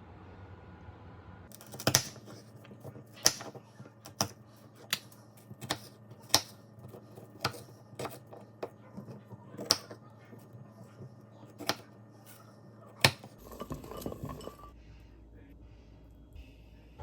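Kitchenware clinking: a dozen or so sharp clinks of utensils against dishes at an uneven pace, about one a second, followed by a short burst of rustling noise near the end.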